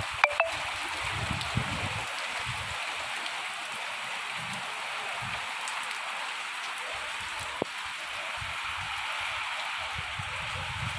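Steady rain falling, an even hiss of drops on the surroundings. Two sharp clicks about half a second in and one more near 8 s stand out above it.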